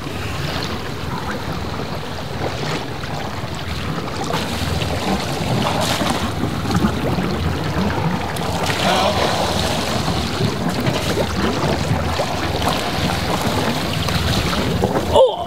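Steady rush of wind on the microphone and sea water washing past a sailboat under way, with no distinct single event.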